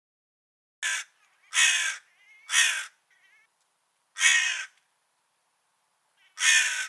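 Crow cawing: five loud, harsh caws at uneven intervals, the first one short, with a few faint, softer calls in between.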